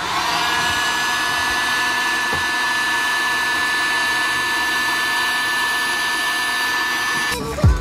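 Electric heat gun blowing steadily with a thin high whine, shrinking heat-shrink tubing on wiring; it cuts off suddenly near the end.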